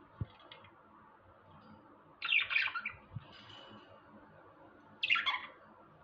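Caged exhibition budgerigars give two short bursts of chattering calls, about two seconds in and again near the end. A low knock comes just after the start.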